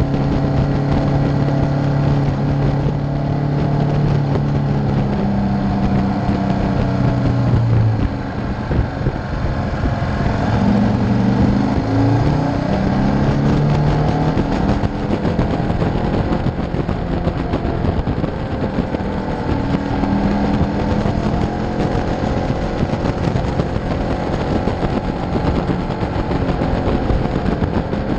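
KTM V-twin motorcycle engine running under way, mixed with wind and road noise. The engine note falls away about eight seconds in, then climbs in steps over the next few seconds.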